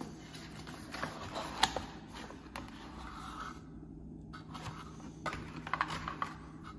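Hands handling items in a cardboard unboxing box: light scraping and rustling of packaging and coiled cables, with a few sharp clicks as pieces are moved, one about two seconds in and several near the end.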